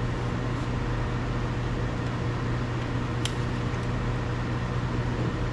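Steady low mechanical hum with a faint click about three seconds in.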